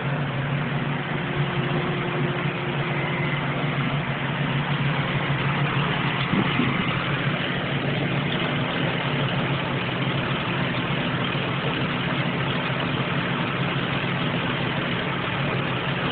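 Ford Windstar V6 idling with a steady noisy hiss over the engine hum, a terrible noisy idle from a vacuum leak at the upper intake manifold. A brief click sounds once partway through.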